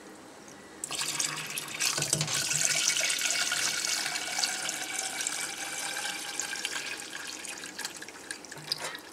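Kitchen tap turned on about a second in, running a stream of water into a metal pot in a steel sink and filling it.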